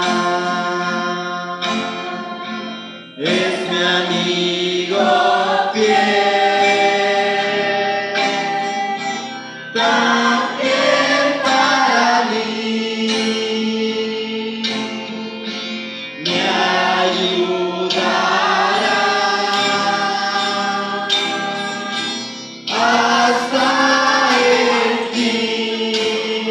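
A church congregation singing a hymn together, accompanied by strummed acoustic guitars. The singing comes in long phrases of about six or seven seconds, each starting afresh after a short dip.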